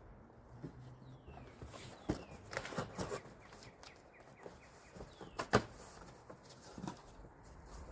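A few sharp knocks and clatters, a cluster about two to three seconds in and the loudest one about five and a half seconds in, with faint bird chirps in the background.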